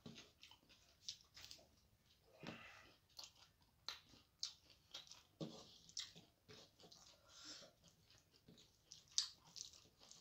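Faint, irregular wet clicks and smacks of someone chewing with her mouth, along with fingers mashing and mixing soft, watery fena bhat (rice in its starchy cooking water) on a metal plate.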